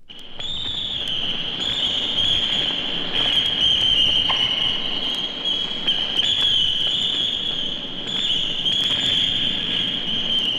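A high, steady whistling tone over a crackling hiss, starting just after the opening and holding with slight wavers in pitch.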